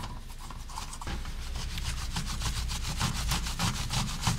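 Rapid back-and-forth rubbing strokes on a chased silver plate, working in polishing paste to bring up the shine after sanding. The strokes start about a second in and repeat several times a second.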